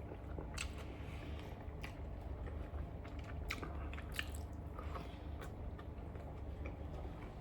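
A person chewing and eating beef chow fun noodles close to the microphone, with short mouth clicks and smacks scattered through, over a steady low hum.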